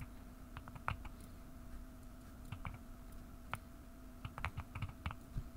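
Computer keyboard keys clicking in short, scattered presses, about a dozen in all, with a faint steady hum underneath.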